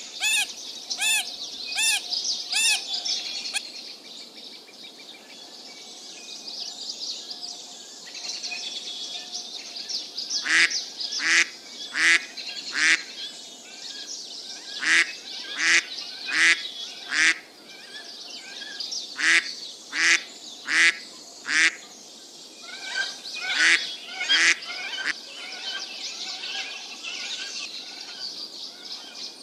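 Large birds calling: several groups of three or four short, loud calls a little under a second apart, over the steady chirping of small birds. A few similar calls repeat at the very start.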